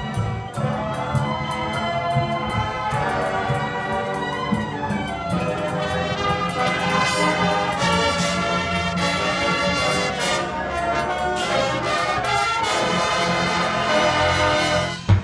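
High school marching band's brass section playing a full, sustained passage over held low notes, with percussion strokes running through it. Near the end the sound drops out briefly, then comes back with a loud low hit.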